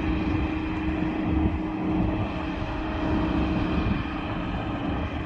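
Corn harvester's engine running, a steady drone with a constant low hum.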